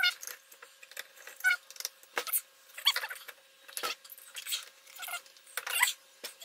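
Small metal throttle-body parts clicking and clinking as they are handled on the workbench, in scattered sharp clicks. A cat meows a few times in short high calls among them.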